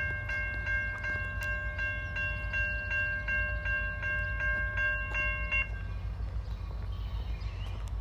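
Railroad grade crossing warning bell dinging rapidly and evenly, about three strikes a second, while the crossing gates lower. The bell cuts off about five and a half seconds in, once the gate arms are down. A steady low rumble runs underneath.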